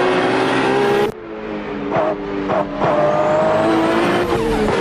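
Sports car engines running hard at high revs, the engine note rising and falling as the cars accelerate, with an abrupt cut about a second in.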